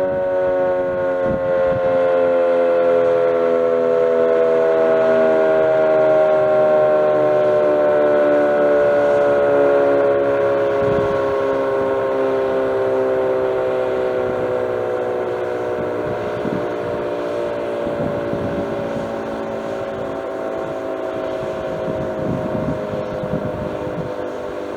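Sentry 15V2T dual-tone outdoor warning siren winding down at the end of its attack signal. Its chord slides slowly and steadily lower in pitch and gradually fades.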